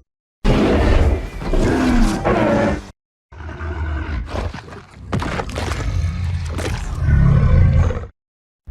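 Skar King, the giant ape titan, in film creature sound effects. A roar with a wavering, bending pitch lasts about two and a half seconds. After a short silence comes a longer, rougher vocal stretch with sharp clicks, which swells to a loud low roar and cuts off abruptly.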